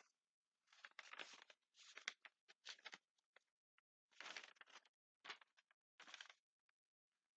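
Paper pages rustling and flapping as they are handled and turned close to the microphone, in about six short bursts with pauses between.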